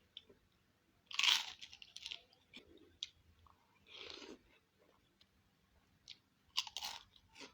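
Close-miked mukbang eating of bakso malang: chewing and crunching mouthfuls in a few separate bursts, the loudest about a second in and again near the end, with small clicks and mouth sounds between.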